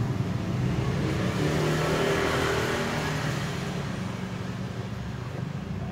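A road vehicle passing by, its noise swelling about two seconds in and fading away, over a steady low hum.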